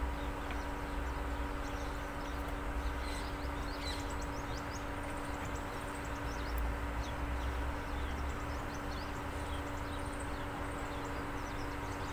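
Small birds chirping repeatedly in short, quick high calls over a steady mechanical hum with a low rumble.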